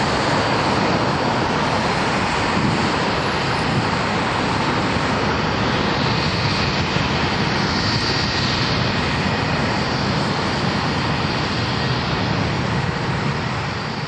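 Jet noise from a Boeing 737-800's twin CFM56-7B turbofan engines at takeoff power as the airliner climbs away: a steady, loud rush with a faint high whine above it.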